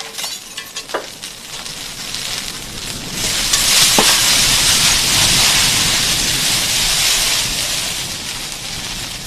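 A fire burning, with a few sharp crackles and then a loud hiss that swells about three seconds in and slowly eases off.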